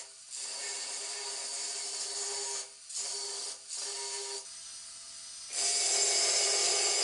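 Angle grinder cutting into prefinished parquet floorboards: a steady motor whine with a hissing cut. It drops out briefly three times, goes quieter for about a second, then comes back louder for the last couple of seconds as the disc bites into the wood.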